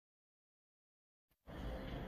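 Dead silence, then about a second and a half in, background music cuts in abruptly with a heavy low rumble.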